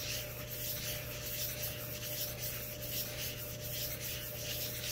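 A micarta knife scale rubbed by hand on coarse sandpaper over a flat granite slab: scratchy sanding strokes, about two a second. The scale's back is being flattened and roughed up in figure-eight strokes.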